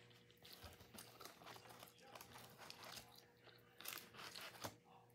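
Faint close-up chewing of barbecue-sauced fried chicken, with small irregular crunches and clicks. A few louder clicks come about four seconds in.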